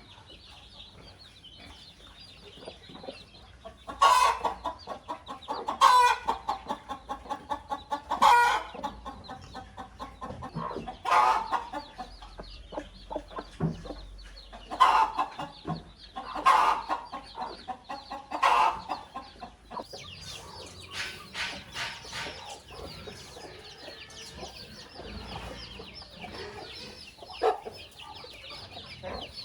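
Chickens clucking, with about seven loud calls spread through the middle of the clip, several of them running on into a quick series of short clucks.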